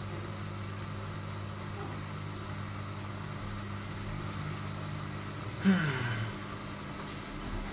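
Miele Supertronic front-loading washing machine in its wash cycle: a steady low motor hum as the drum turns the wet laundry. A little past halfway there is a louder swish of water and laundry, and the motor's pitch falls as the drum slows.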